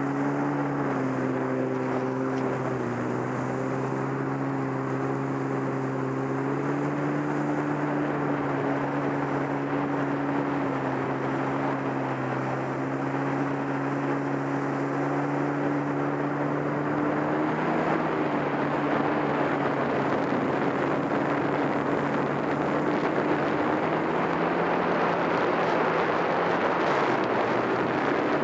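Jet ski engine running at a steady cruising speed, a droning tone, with water and wind rushing past. A second, higher tone drops out about seven seconds in, and the rushing grows louder in the second half.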